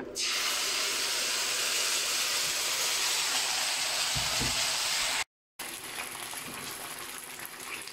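Sauce poured into hot oil and fried dried chilies in a frying pan, sizzling loudly the moment it hits. The sizzle drops out for a split second about five seconds in and carries on quieter.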